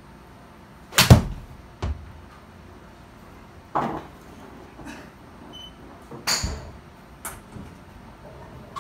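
A golf club strikes a ball in an indoor simulator bay: a single sharp crack about a second in, the loudest sound, with a lighter knock just after it. A few scattered lighter knocks and clicks follow.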